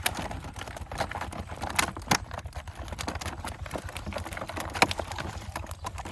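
Fish being handled at a pond harvest: an irregular string of wet slaps and patters from flapping fish and splashing water, with the sharpest slaps just after two seconds and near five seconds.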